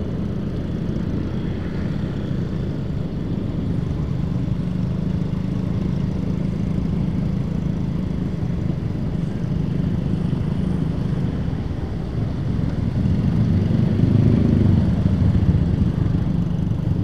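Motorcycle engine running steadily under way in town traffic among other motorcycles, growing louder for a few seconds about thirteen seconds in.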